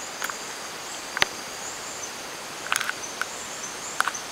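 Rainforest insects calling in a steady high chorus, with short chirps repeating about twice a second over a continuous high whine. A handful of sharp clicks or snaps cut through it, the loudest a little over a second in, with another cluster near the three-second mark.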